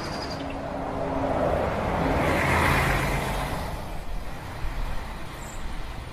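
A van pulling away and driving off: a low engine hum, then a rush of engine and road noise that swells about two to three seconds in and fades away.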